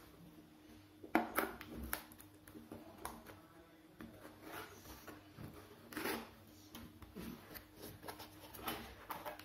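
A cardboard game box being handled and opened: faint scattered taps, knocks and rubbing of cardboard as it is turned over and the lid is worked loose.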